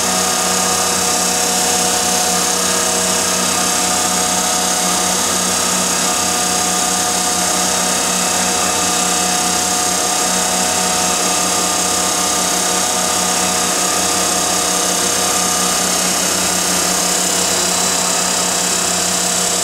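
1952 Heald 271 Size-Matic internal grinder running in its automatic cycle: a steady mechanical hum with a constant high whine from the grinding spindle and motors, unchanging throughout.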